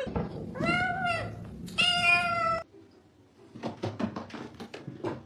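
A domestic cat meowing twice, the first call rising and falling, the second held longer and steadier, followed by a quick run of light clicks or taps.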